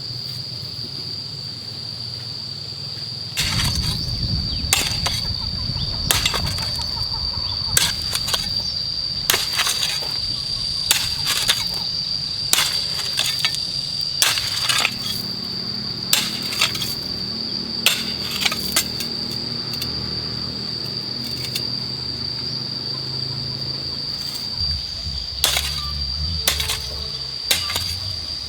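Sharp knocks repeated roughly once a second, like work on a building site, over a steady high-pitched whine.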